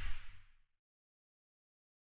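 Tail of a logo-intro whoosh sound effect: a swell with a high shimmer that fades out and stops within the first second.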